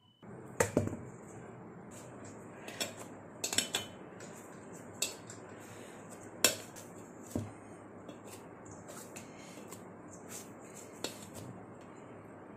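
Metal kitchen utensils clinking and knocking against cookware during paratha preparation: a dozen or so sharp, irregular clinks, loudest just after the start and again about halfway through, over a steady low hiss.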